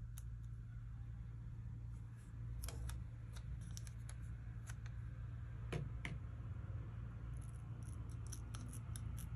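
Small scissors cutting a sticker sheet in short, irregular snips, over a steady low hum.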